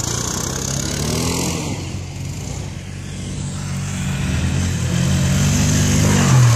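Quad-bike (ATV) engine running and revving as it is driven over snow, getting louder toward the end as the quad comes close.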